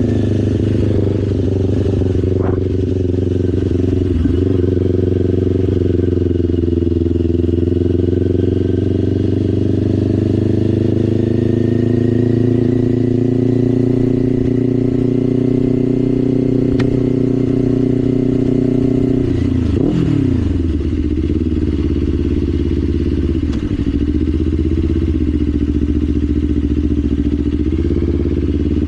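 Kawasaki Ninja 500 parallel-twin engine running under way, its pitch climbing slowly as the bike gathers speed. About twenty seconds in the pitch drops sharply and climbs again, with smaller dips near the end.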